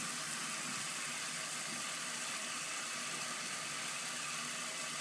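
Steady background hiss with a faint low hum, unchanging throughout, with no distinct splashes or drips.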